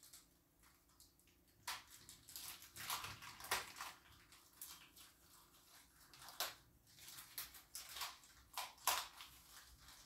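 Small plastic toy spy goggles being handled and worked open by hand: irregular light plastic clicks, snaps and crinkles, a few sharper ones about three and a half seconds in and near the end.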